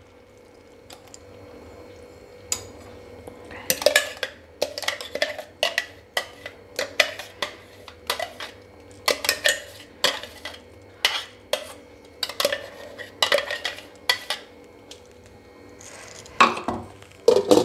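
Spatula scraping and knocking against a steel mixer jar and pan as thick blended banana paste is scraped out into a pan of jaggery syrup: irregular clinks and taps, several a second, starting about two seconds in, with a louder cluster near the end.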